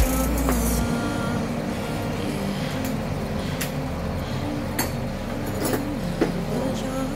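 Car-repair workshop background: a steady hum with a few short metallic clinks and knocks, from tools and parts being handled by the wheel.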